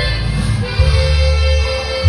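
Loud dance music with a heavy, sustained bass line and a melody on top, played for couples dancing.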